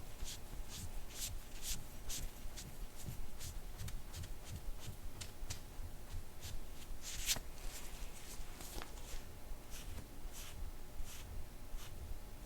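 Soft-tissue scraping tool rasping over the skin of the back in quick repeated strokes, about two or three a second, with one louder stroke a little past the middle.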